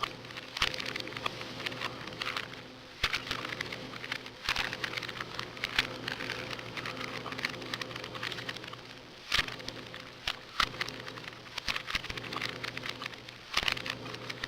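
Rubik's cubes being turned quickly: a dense run of small plastic clicks and clatter, with a few louder clacks, the sharpest about nine seconds in. A faint steady hum lies underneath.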